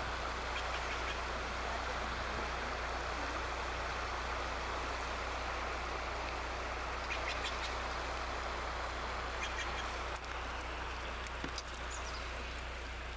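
Steady rush of a shallow river flowing over rocks, over a low steady hum, with a few faint short sounds about halfway through and near the end.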